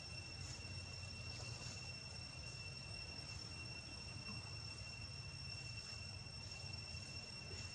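Insects singing in a steady, unbroken high-pitched drone over a faint low rumble.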